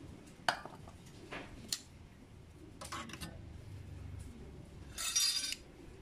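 Scattered light metallic clinks and taps of small metal tools and parts being handled, with a brief hiss lasting about half a second around five seconds in.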